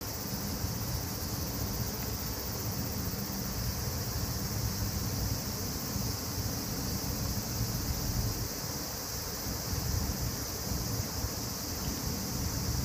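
Outdoor ambience: wind buffeting the microphone with a fluttering low rumble, over a steady high-pitched hiss. The squatting cat makes no sound that can be picked out.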